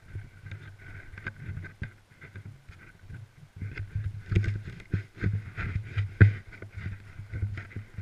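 Snowmobile engine running steadily as the sled rides over packed snow, with many irregular knocks and buffets over it. It gets louder about halfway through.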